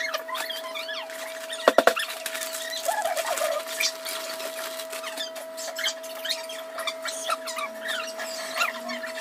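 Kitchen sounds fast-forwarded to five times speed, so everything comes out high and squeaky: a string of short chirping squeaks and small clicks over a steady high hum, with a quick rattle of clicks about two seconds in.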